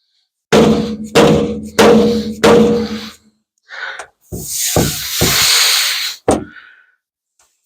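Hammer blows on the sheet-steel front panel of a 1950 Ford F1 during dent repair: four strikes about two-thirds of a second apart, each leaving a short metallic ring. After them come a few duller knocks and about two seconds of hissing, rubbing noise.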